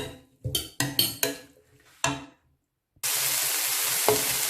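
A metal utensil clinks sharply against cookware five or six times while stirring. After a short silence, food starts sizzling loudly and steadily in a hot frying pan, beginning abruptly.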